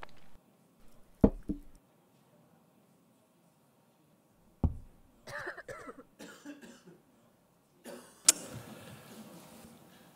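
Short non-speech noises on a press-conference microphone: a man's cough, sharp clicks and a low thump, separated by near-silent gaps, with a loud click about eight seconds in followed by a stretch of hiss-like noise.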